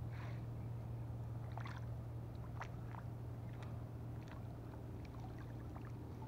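Water dripping and trickling off a wet nylon cast net as it is gathered in the hands: a scatter of small drips and splashes, about a dozen, over a steady low hum.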